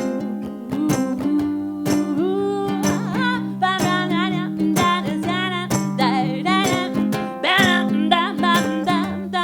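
Instrumental break of a live acoustic song: steadily strummed chords on a guitar or ukulele, with a wavering lead melody entering about two seconds in and carrying on over the strumming.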